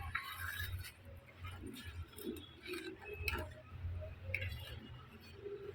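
Cooking at a wood-fired chulha while a pot of peanut curry simmers: scattered sharp clicks and clinks, about one a second, over a steady low rumble.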